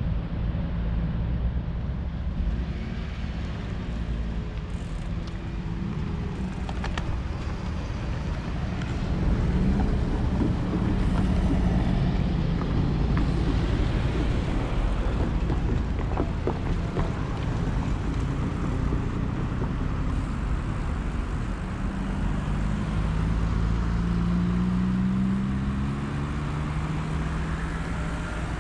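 Street traffic heard from a moving bicycle, with wind rumbling on the action camera's microphone. Cars pass, and in the last third a vehicle's engine rises in pitch as it accelerates.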